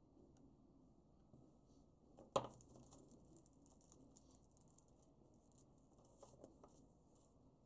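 Faint rustling of paper leaflets and plastic packaging being handled on a tabletop, with one sharp tap a little over two seconds in and a few light clicks near the end.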